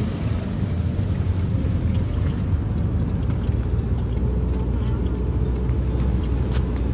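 Steady low rumble of a vehicle, with faint scattered ticks.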